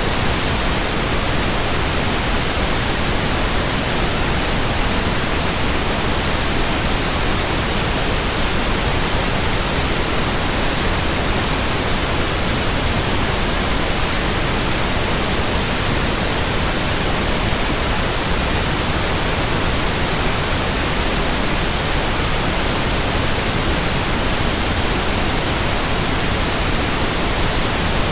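Steady white noise: an even, unbroken hiss spread across all pitches, with no pulse or change.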